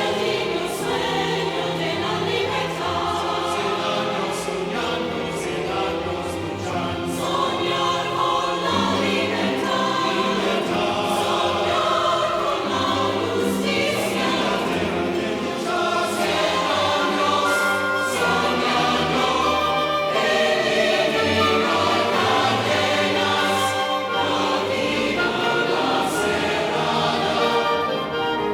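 A choir singing with an orchestra, a full, sustained choral and orchestral passage.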